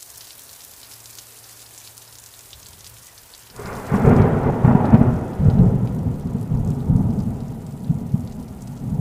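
Steady rain hiss, then about three and a half seconds in a loud thunderclap that rolls on as a deep pulsing rumble over the rain.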